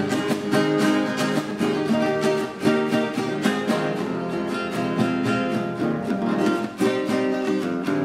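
Acoustic guitar strummed in a steady, even rhythm.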